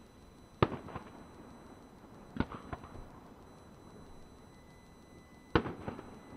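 Aerial firework shells bursting: three sharp bangs a couple of seconds apart, each followed by one or two weaker cracks.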